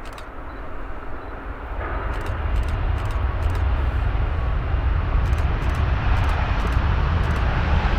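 Jet airliner's engines rumbling, growing steadily louder as the aircraft approaches, with a clear swell about two seconds in.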